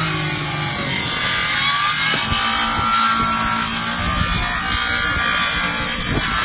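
Power tool cutting out teak deck planking, running steadily with a strong hiss and irregular knocks as it works through the wood.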